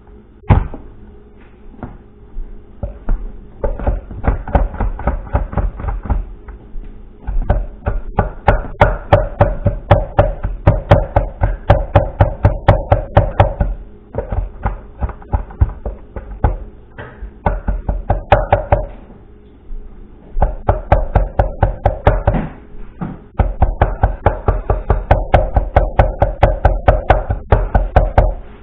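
Cleaver chopping rapidly on a wooden cutting board, mincing garlic, at about four or five knocks a second. It comes in runs of several seconds broken by short pauses.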